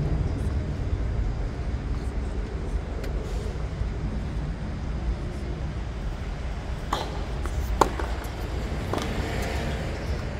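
Tennis racket strikes on a hard court over a steady low outdoor rumble: a sharp hit about seven seconds in, a louder crack under a second later, and a softer hit about two seconds after the first.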